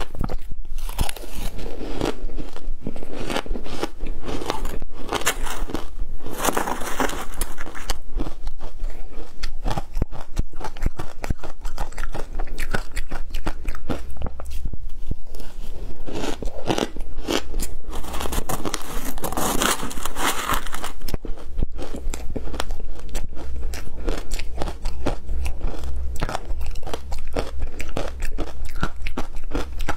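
Shaved ice topped with matcha and milk powder and passion fruit being bitten and chewed by the spoonful: a dense, continuous stream of crisp crunching and crackling, louder in two stretches of a couple of seconds.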